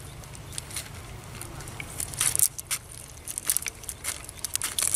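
Hands picking through a cast net on wet, shell-strewn mud: irregular crackling and rustling clicks of the mesh and mud, busier in the second half, over a steady low hum.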